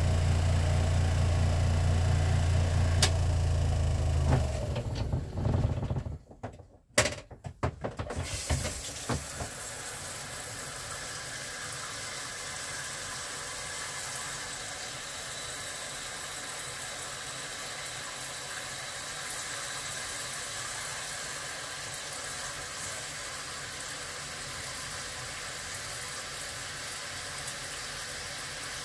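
Portable twin-tub washing machine's motor running with a low hum, which stops about four seconds in. A few seconds of knocks and clatter follow, then a steady hiss.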